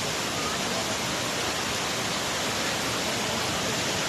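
Waterfall rushing: a steady, dense wash of falling water that does not change.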